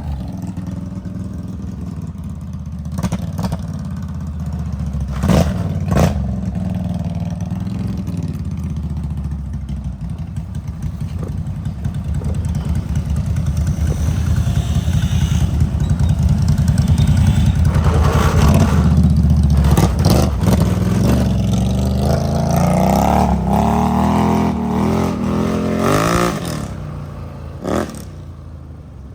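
ATV engine running while riding a dirt trail, with a couple of sharp knocks a few seconds in. About three quarters of the way through the engine speeds up with a rising pitch, then eases off near the end.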